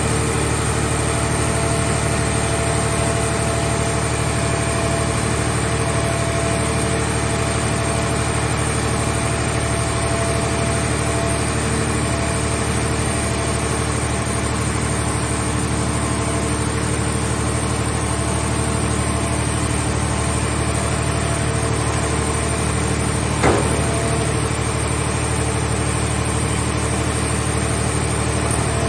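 Engine-driven hydraulic power unit of a portable scrap car baler running steadily, with one short knock about 23 seconds in.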